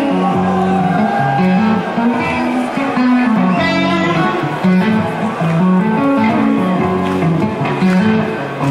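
Live heavy-metal music: two electric guitars play a melodic passage of held notes that change pitch every fraction of a second.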